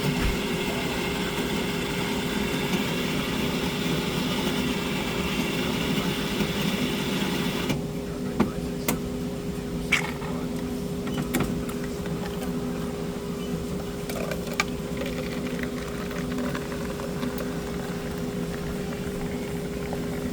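Coffee machine running and dispensing, a steady hum with a hiss that cuts off about eight seconds in, followed by a few sharp clicks and knocks.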